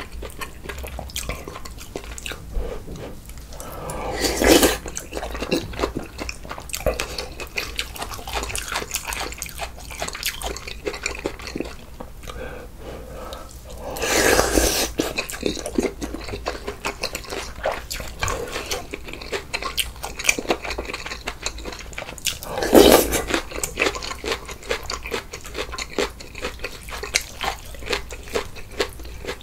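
Close-miked eating of a bulgogi hot pot and kimchi: chewing with many small wet clicks and smacks throughout, and three louder, longer bursts about 4, 14 and 23 seconds in.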